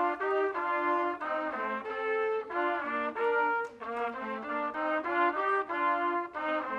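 A quartet of trumpets playing a tune in harmony, several notes sounding together and moving on a few times a second.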